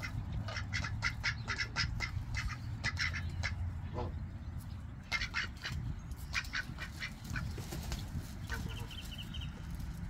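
Ducks quacking in quick runs of short calls, with a short break about halfway through.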